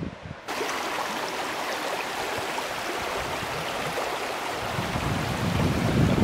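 Shallow stream running over stones, a steady rushing that comes in suddenly about half a second in. Wind buffets the microphone in the last second or so.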